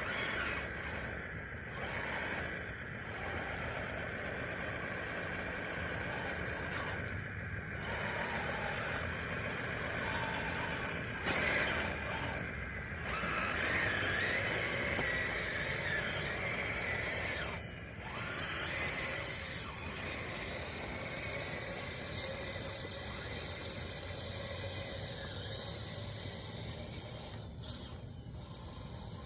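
Radio-controlled bulldozer with wide tracks running: a steady electric-drive and gearbox whine with the tracks squealing, cutting out briefly and starting again several times as the machine stops and moves.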